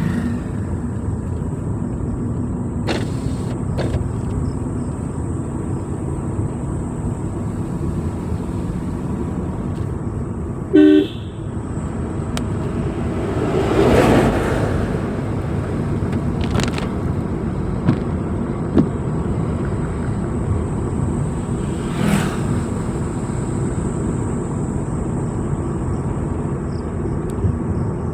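Car driving along a road with steady engine and road noise. One short horn toot about eleven seconds in is the loudest sound, and a rushing noise swells and fades a few seconds later.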